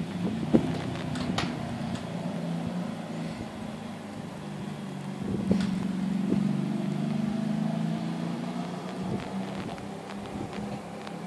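A steady low hum that swells for a couple of seconds midway, with a few sharp knocks and clicks, the loudest about half a second in.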